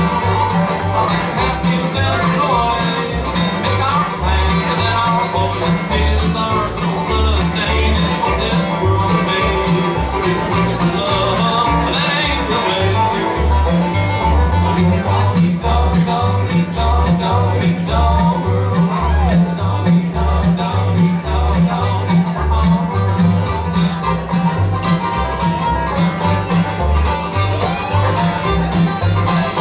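Live bluegrass band playing a song: five-string banjo, fiddle, acoustic guitar and upright bass, with the bass notes pulsing in a steady beat.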